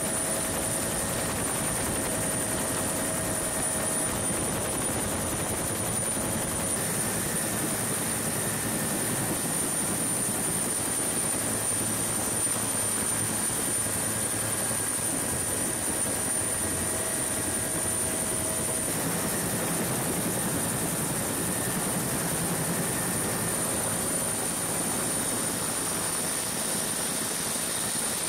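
Helicopter running steadily, heard from inside the cabin: an even rotor and engine noise with a constant high whine.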